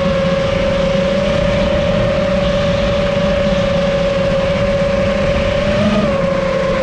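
FPV drone's motors and propellers whining at a steady pitch, with a brief rise in pitch a little before the end as the throttle changes, then settling back.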